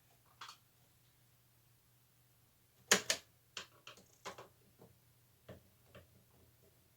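A handful of sharp clicks and light knocks from a screwdriver and hands working on a newly fitted circuit breaker in a breaker panel, the loudest about three seconds in.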